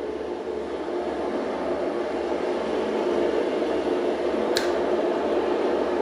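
A steady, even roar of noise with no rhythm or pitch changes, and a single sharp click about four and a half seconds in.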